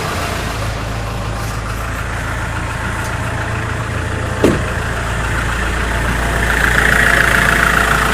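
Kia Sorento's 2.5-litre D4CB diesel idling steadily, with one short knock about halfway through and a higher rattle growing louder near the end. There is no belt squeal: the squeaking pulley bearing has been replaced.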